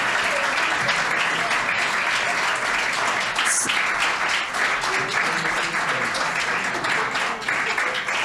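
Audience applauding, dense steady clapping from many people.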